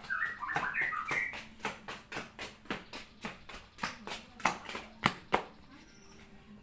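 A cat crying out in short, high-pitched, wavering meows during the first second or so as it gets its injection, followed by a run of sharp clicks and taps.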